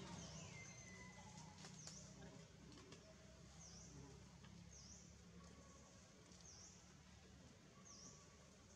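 Near silence with a faint bird chirping: short, high chirps repeating every second or so, over a low steady hum.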